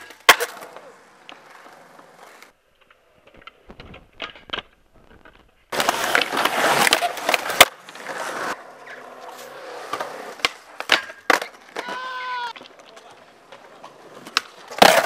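Skateboard tricks on concrete: the board sliding along a metal rail, hard wheels rolling loudly over the concrete for a couple of seconds mid-way, and sharp clacks of the deck snapping and landing, with a cluster of hard landings near the end.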